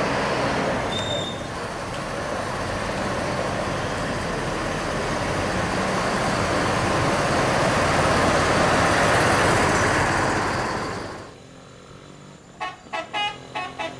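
A large bus passes close by with loud engine and road noise that builds until about ten seconds in and then cuts off abruptly. Near the end, a bus's telolet horn, a multi-trumpet electric air horn, plays a quick run of short, high-pitched toots in a rapid melody.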